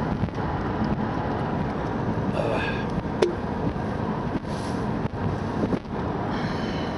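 Steady road and engine noise inside a moving vehicle, with a single sharp click about three seconds in and a couple of brief high chirps.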